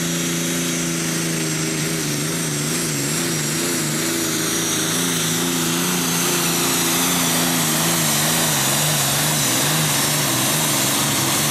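John Deere Super Stock pulling tractor's turbocharged diesel engine running flat out under load while dragging the weight sled. Its pitch wavers up and down over a loud high hiss.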